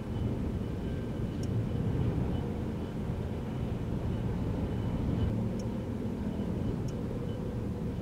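Strong gusty wind buffeting the microphone in a steady low rumble, mixed with the sound of passing road traffic.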